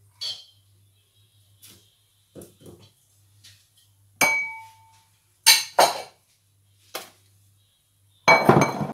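Slotted spatula knocking and scraping against a frying pan while semolina is stirred and turned: scattered irregular clinks, one of them ringing briefly about four seconds in, and a louder burst of clattering and scraping near the end.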